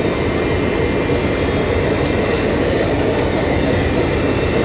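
Diesel locomotive running, heard from inside its cab: a loud, steady mechanical noise with no break.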